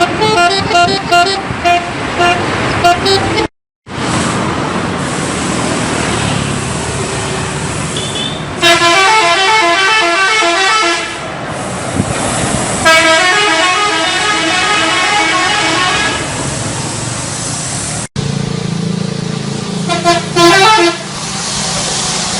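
Indonesian 'telolet' bus horns: multi-tone musical air horns playing quick stepping melodies over engine and street noise. There are three longer melodic runs and a couple of short toots near the end, and the sound cuts out briefly twice.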